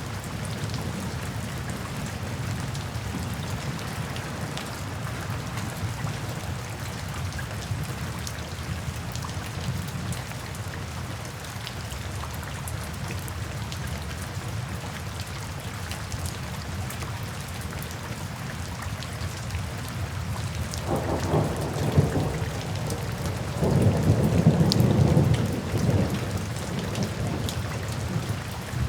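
Steady rain falling, with a low rumble of thunder underneath. Two louder thunder rumbles come near the end, the second longer and louder.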